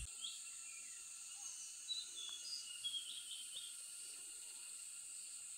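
Small birds chirping in short, scattered calls during the first few seconds, over a steady high-pitched insect drone.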